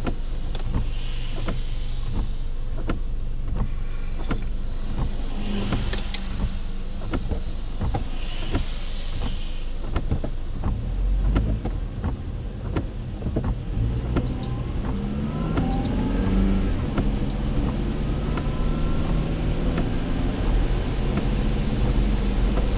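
Car engine idling in stopped traffic, heard from inside the cabin, with scattered light ticks. Past the halfway point the engine speeds up in rising whines as the car pulls away, and tyres hiss on the wet road.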